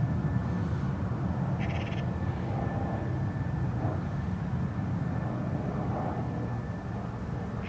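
Bombardier Challenger business jet's rear-mounted turbofans running at taxi power from a distance: a steady low rumble with a faint thin whine. A short high chirp cuts in about two seconds in.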